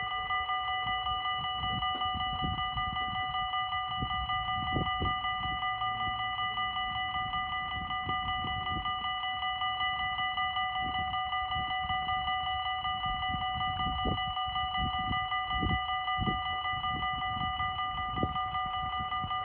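Dutch level-crossing warning bells ringing steadily in rapid, evenly repeated strokes, warning that a train is approaching.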